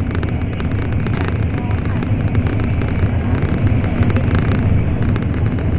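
Steady running noise inside the cabin of an N700 series Shinkansen at speed: a loud, deep rumble with a hiss over it and faint scattered clicks.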